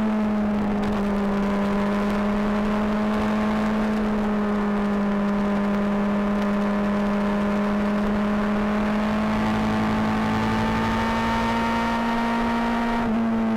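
Honda CBR600RR inline-four engine's exhaust under steady throttle, holding a fairly even pitch that dips slightly and then rises gradually, with a quick change in revs near the end.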